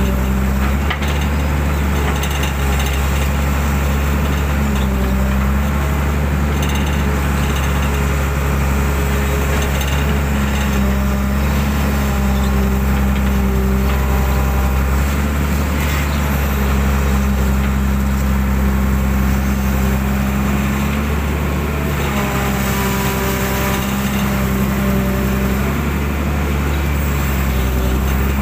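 Excavator's diesel engine running steadily under working load, its note shifting a few times as the arm and bucket move through the mud.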